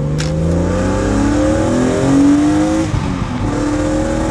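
BMW Z4 M Coupé's naturally aspirated S54 3.2-litre straight-six, breathing through an Eventuri intake and heard from inside the cabin, pulling hard under acceleration. Its note climbs steadily, breaks off about three seconds in as a gear is changed, then climbs again from a lower pitch.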